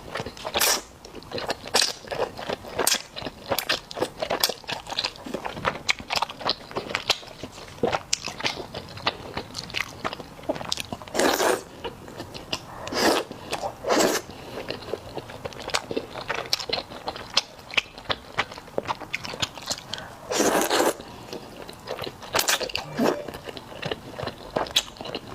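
Close-up ASMR eating of hot spicy noodles: constant wet chewing and lip smacks, broken by a few longer slurps of noodles.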